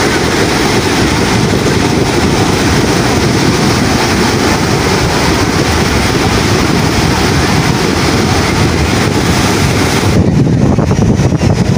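Wind buffeting the phone's microphone in a steady low rumble, over the wash of small surf breaking on a Gulf of Mexico beach. About ten seconds in the high hiss drops away and the wind rumble is left.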